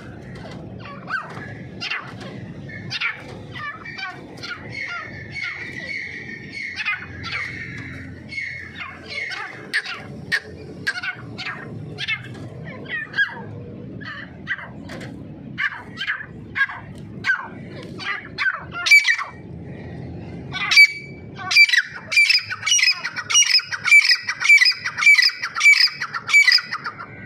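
Partridges (teetar, grey francolin type) calling with repeated short, sharp notes, and about two-thirds of the way in a louder run of evenly spaced calls, about two a second.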